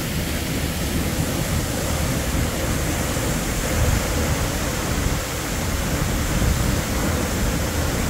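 Steady rushing noise of a tall twin-stream waterfall plunging into a pool, heard close by with no breaks.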